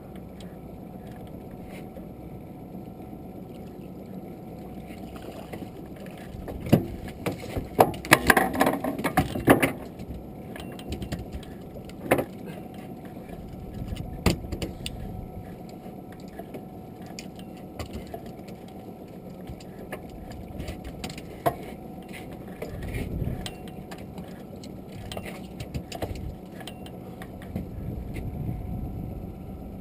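A flurry of knocks and rattles on a small open boat as a fish is brought aboard. Single sharp knocks follow later, over a steady low wash of water and wind.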